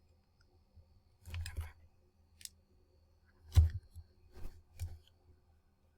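A USB cable being handled and plugged into a small RP2040-Zero microcontroller board on a breadboard: a few scattered clicks and light knocks, the sharpest one a little past halfway through.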